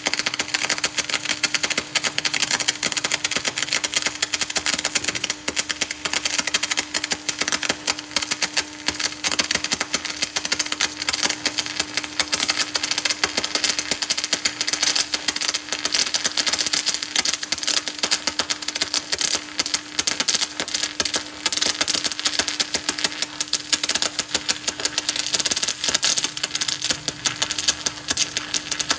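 Electric arc welding: a continuous dense crackle with a steady hum underneath.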